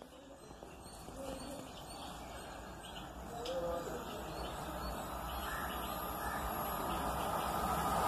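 Birds chirping over the faint rumble of an approaching train, which grows steadily louder toward the end.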